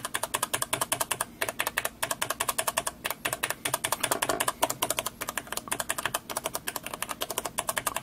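Orange-stem mechanical keyboard switch pressed over and over in quick succession, a rapid patter of key clacks with a brief pause about three seconds in. The reviewer rates its key weight between red and brown switches.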